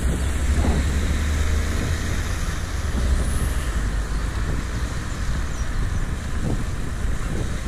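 Riding noise from a bicycle-mounted action camera on a wet road: a steady low wind rumble on the microphone and tyre hiss on wet tarmac, with a car overtaking close alongside near the end.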